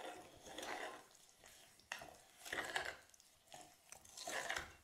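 Metal spoon stirring granulated sugar into an oil and honey mixture in a glass measuring jug: several short scraping strokes, with a light clink against the glass about two seconds in.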